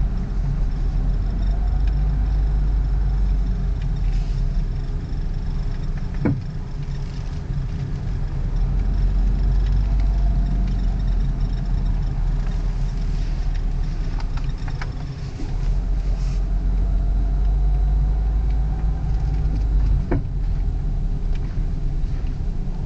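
Cabin sound of a 2001 Ford Focus: steady engine and road rumble, with a sharp pop about a third of the way through and another near the end. The owner takes these pops for worn front control arm bushings and ball joints. A faint high squeak from the A/C blower motor runs under it for much of the time.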